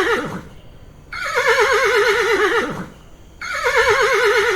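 Horse whinnying: the same long, quavering neigh repeated, each falling away at its end. One ends just as the sound begins, a whole one follows, and a third starts near the end.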